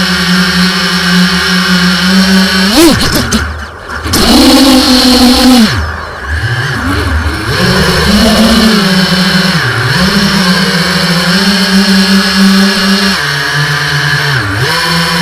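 Brushless motors and propellers of a 5-inch racing quadcopter buzzing in flight, the pitch rising and falling with the throttle. The throttle is cut briefly about three and a half and six seconds in, then punched back up to a higher buzz.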